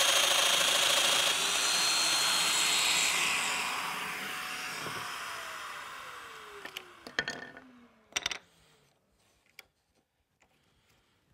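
Festool Domino joiner running as it cuts a mortise in a walnut piece, with its dust extractor drawing through the hose. The noise fades and the motor winds down with a steadily falling pitch. Then a few sharp knocks as the wood is handled on the bench.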